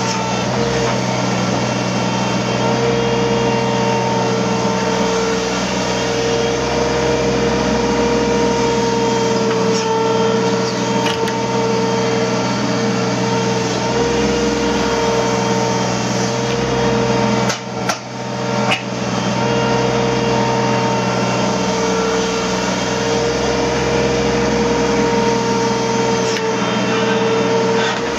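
Hydraulic excavator running steadily, its engine and hydraulics giving a constant hum with a steady high tone. The level dips briefly twice about two-thirds of the way through.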